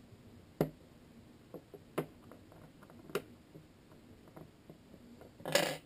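Small sharp clicks and taps of metal pistol parts being handled and pressed together while the recoil spring is fitted into a Hi-Capa pistol, with a short rustle near the end.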